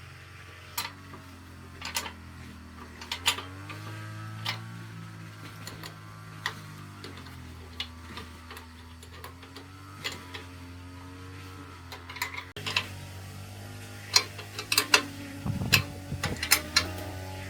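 Irregular sharp clicks and taps, like small hard objects or tools being handled, over a low steady hum. The clicks come thicker and faster near the end.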